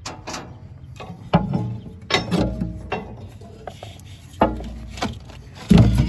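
An old car battery being handled and worked loose in a steel battery box: a series of irregular clunks and knocks with scraping between them.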